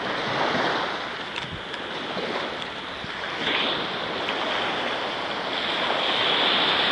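Small waves washing up and running back on a sandy beach: a steady surf wash that swells and eases every few seconds.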